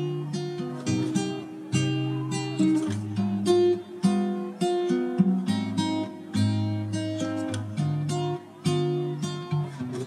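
Background music: a run of plucked guitar notes and strums.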